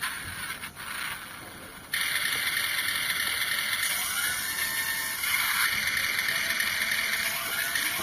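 Remote-control rock truck's electric motor and gears running with a whirring, ratcheting sound. It gets much louder about two seconds in, and its whine rises in pitch a few times.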